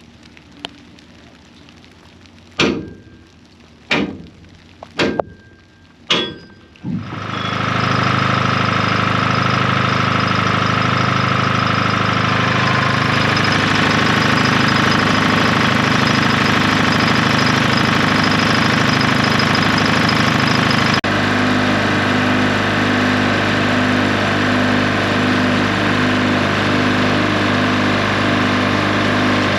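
A few sharp knocks, then an engine starts running loudly and steadily, with a slight pulsing in its tone, and runs on without a break.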